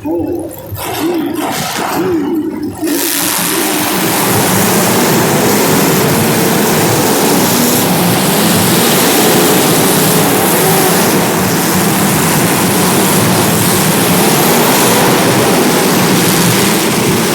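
Several demolition derby car engines running and revving together, a loud continuous din that comes in abruptly about three seconds in, with wavering engine pitch underneath.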